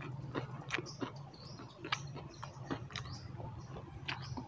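People eating dried fish, rice and cucumber slices by hand: irregular chewing clicks and mouth smacks. A steady low hum runs underneath.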